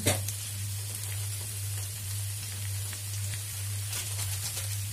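Potatoes, onions and spices frying in oil in a pan, a steady sizzle and crackle with a few faint pops. A steady low hum runs underneath.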